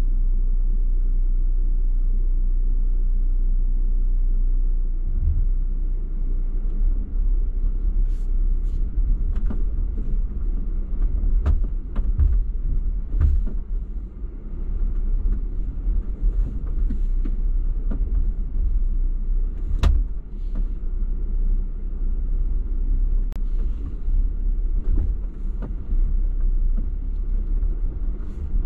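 Off-road vehicle driving slowly over a rough trail: a steady low engine and drivetrain rumble, joined about five seconds in by irregular knocks and clunks as it goes over rough ground.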